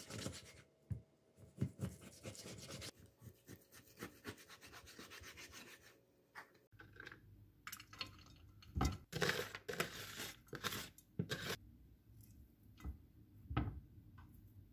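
Chef's knife slicing through raw pork belly on a plastic cutting board, with repeated cutting strokes and taps on the board. About halfway through, this gives way to bean sprouts rustling and being pressed by hand into a pot, with a few knocks as pieces of pork are laid in.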